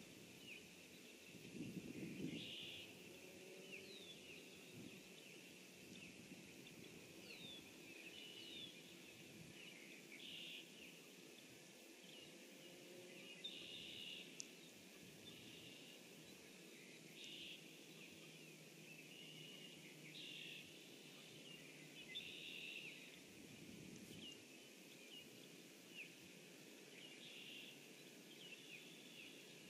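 Near-quiet outdoor ambience with faint, distant songbird song: short high phrases repeating every second or two over a soft steady hiss, and a brief low call about two seconds in.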